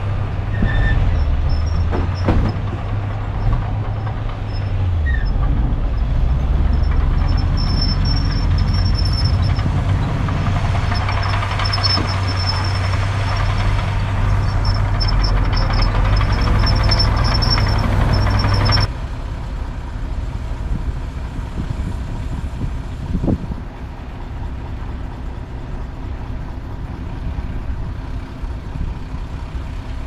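Diesel engines of heavy earthmoving machinery working, a deep steady engine note with intermittent high squeals over it. About two-thirds through, the sound changes abruptly to a quieter, steadier engine run.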